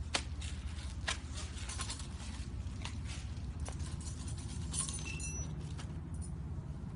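Small metal hand tools clicking and clinking as they are taken out of a toolkit, a few sharp knocks and brief metallic rings over a steady low hum.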